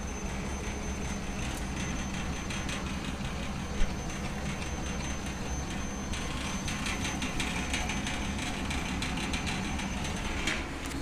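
Solidoodle 3D printer running a print: its stepper motors buzz and whir with fine rapid ticking as the print head moves, over a steady low hum. One sharp click about four seconds in, and the motor chatter gets busier about six seconds in.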